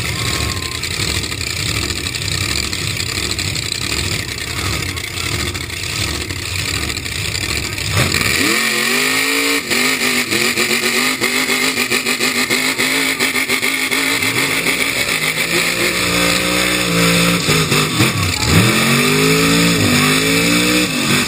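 Two lifted mud trucks' engines pulling at full throttle against each other in a truck pull. At first there is a rough rumble. About eight seconds in an engine winds up sharply to high rpm and holds there, then drops and climbs again near the end as the tires spin.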